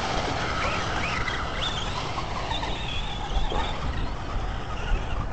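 Electric RC trucks driving across a grassy field, their brushless motors whining in short pitches that rise and fall, over a steady rumble of wind on the microphone.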